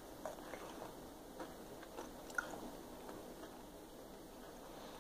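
Faint chewing of a crispy seasoned potato wedge, with small crunching clicks for the first couple of seconds and a sharper one midway, then quieter chewing.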